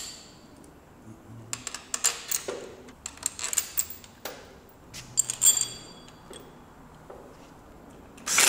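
Scattered light metallic clinks and knocks of hand tools and bike parts being handled, a few of them ringing briefly with a high ting.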